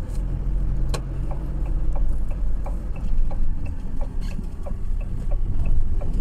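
Car running, heard from inside the cabin, with a steady low rumble of engine and road. A turn-signal indicator ticks evenly about three times a second, and there is one sharp click about a second in.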